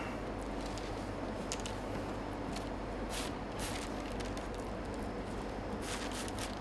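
Soft whipped butter mixture scraped with a spatula out of a stainless steel bowl onto parchment paper: a few quiet scrapes and squishes over a steady kitchen hum.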